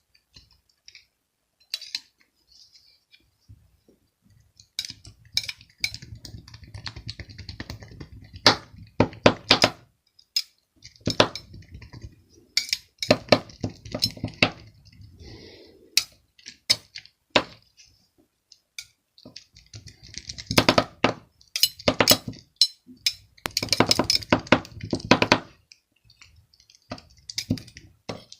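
Small hard objects clinking and clicking, in irregular clusters of sharp taps with short quiet gaps between.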